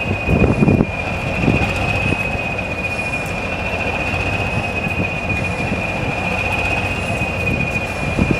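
Locomotives standing in a yard: a steady, slightly wavering high-pitched whine over an uneven low rumble, which is briefly louder about half a second in.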